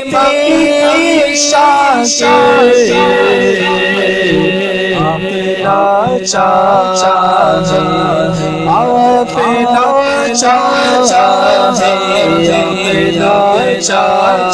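Men singing an Urdu devotional naat into a microphone. A lead voice sings in wavering, drawn-out lines over a steady chanted drone from other voices.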